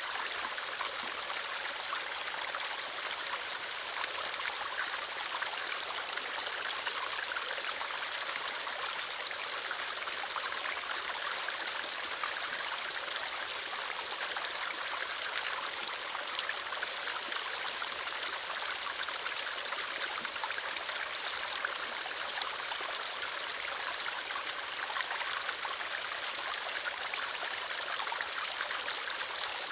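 Running water of a stream flowing steadily, an even, unbroken hiss of water with no pauses or changes.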